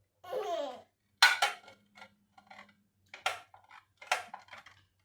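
A few sharp clattering knocks of hard objects, roughly a second apart, each with a short ringing decay, after a brief voice-like sound at the start.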